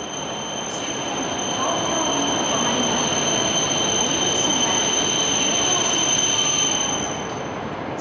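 E5 series Shinkansen train pulling slowly into a station, with a dense running noise. A steady high-pitched squeal runs over it and stops about seven seconds in.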